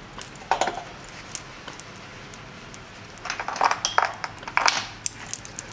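Light metallic clicks and clinks of a compression tester's hose fitting and gauge being handled over the spark plug wells, a few scattered at first, then a quick cluster from about three to five seconds in.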